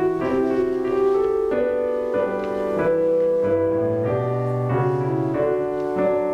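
A keyboard instrument plays slow, sustained chords that change every second or so. This is the instrumental introduction to a sung verse.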